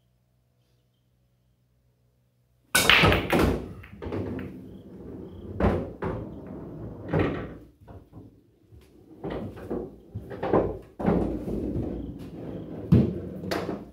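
Break shot in 9-ball on a coin-operated bar-box pool table: a sharp crack of the cue ball into the rack just under three seconds in, then balls clicking against each other and the rails and knocking into the pockets for several seconds.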